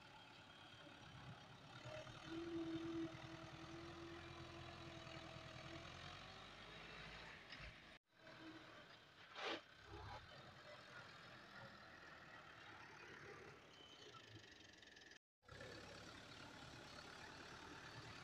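Fiat 640 tractor's diesel engine running steadily and faintly while the tractor pushes earth with its front blade. The sound cuts out briefly twice, and there is one short knock about halfway through.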